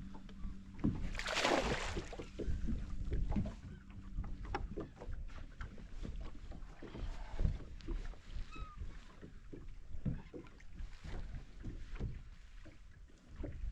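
Bass boat on the water: low rumble of wind and water with scattered knocks and taps, a brief rushing hiss about a second in, and a faint steady hum for the first few seconds.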